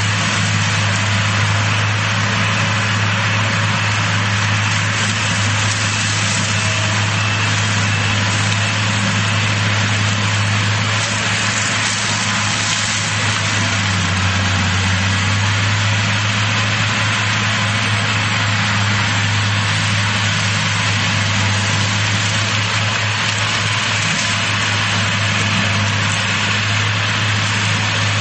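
Heavy diesel engines of forestry mulching machines, a tracked Fecon Bull Hog-type mulcher and a Doosan excavator carrying a mulcher head, running steadily under load with a constant drone and mechanical noise.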